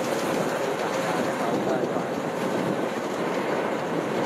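Kubota rice combine harvester running steadily while cutting and threshing wet rice, a continuous clattering mechanical din of engine and threshing works.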